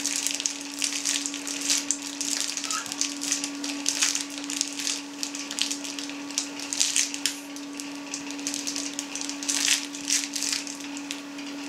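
Hand-cranked vertical piston sausage stuffer pushing pork emulsion into an edible collagen sausage casing: irregular crackling and rustling as the crank turns and the casing fills and slides over the plastic-covered table, over a steady low hum.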